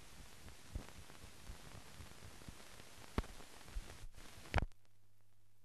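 Background noise of a silent film transfer: a steady hiss with scattered clicks and pops. After a louder pop about four and a half seconds in, the hiss drops away, leaving a steady low hum.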